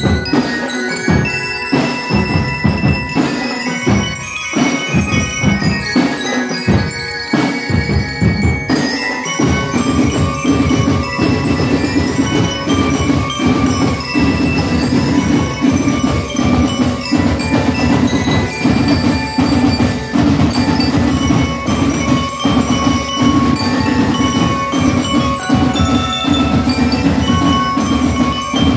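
Drum and bell corps playing: glockenspiel-style bells struck with mallets carry a ringing melody over snare drums. About nine seconds in the full drumline joins and the playing becomes denser and steadier.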